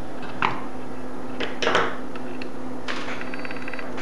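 Small metallic clicks and scrapes of the Miller Spoolmate 150 spool gun's contact tip and nozzle being handled, then about three seconds in a short whirring run of the gun's wire-feed drive with fast even ticking and a thin high whine, over a steady low hum.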